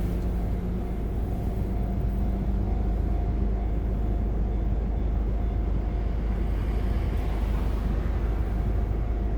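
Nishitetsu Kaizuka Line electric train running through a level crossing: a steady low rumble.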